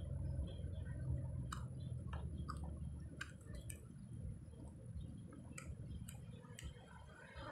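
A person chewing grilled fish, with scattered small wet clicks and smacks of the mouth.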